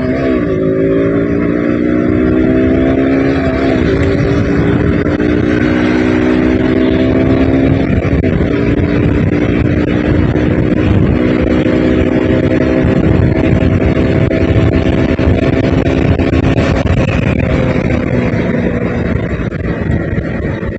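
KTM RC sport bike's single-cylinder engine heard from the rider's seat, accelerating up through the gears: the pitch climbs and drops at gear changes about 4 and 8 seconds in, then holds steady at speed and eases off slightly near the end, with wind and road rush.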